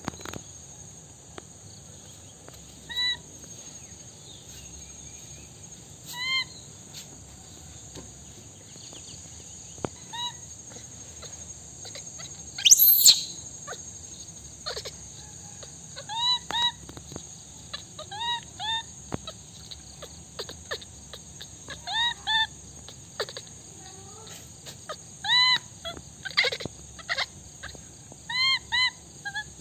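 Baby macaque crying: short, high-pitched, arched calls every few seconds, some single and some in quick pairs or threes, over a steady high insect hiss. One louder, sharper sound comes about halfway through.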